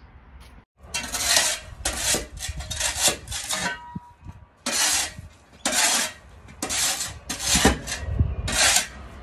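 A metal shovel blade scraping along concrete pavers in about nine strokes, roughly one a second with a short pause midway, clearing grass and moss off the paving.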